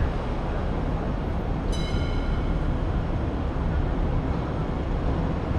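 Steady outdoor city background noise with a deep low rumble, as of distant traffic. About two seconds in, a short high-pitched tone with overtones sounds for under a second.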